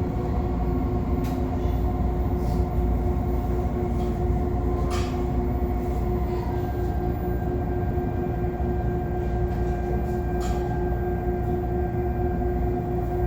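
CPTM Série 2000 electric multiple unit running, heard from inside the car: a steady low rumble with a steady droning tone from the traction equipment. A higher steady tone joins about halfway through, and a few sharp clicks from the wheels on the track come through.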